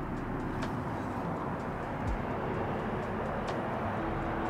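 Steady rumble of traffic on a highway bridge, with a few faint clicks.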